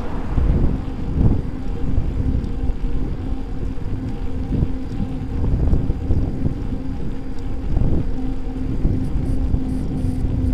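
Wind noise on the microphone of a camera riding on a moving electric bike, a dense uneven low rumble, with a steady low hum running under it.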